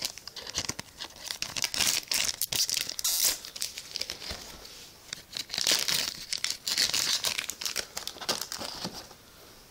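A foil trading-card booster pack crinkling in the hands and being torn open: an irregular run of crackles and rustles that thins out near the end.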